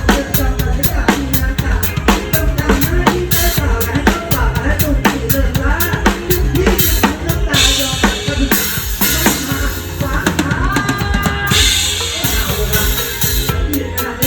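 Live drum kit playing fast, steady kick and snare strokes along with a mor lam band. Cymbals crash and wash about halfway through and again later on.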